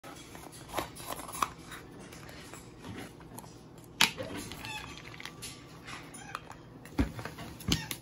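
Hyacinth macaw's beak tapping and scraping on a plastic peanut-jar lid. There are a few sharp clicks, the loudest about four seconds in and a pair near the end.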